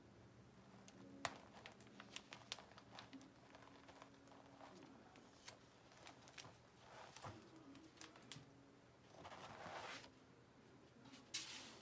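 Adhesive vinyl being peeled slowly off a sticky cutting mat: a run of small crackles and ticks as the vinyl lets go. A short, louder rustle comes near the end.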